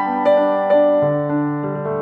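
Background piano music: a slow melody of struck notes left to ring, with a low bass note coming in about a second in.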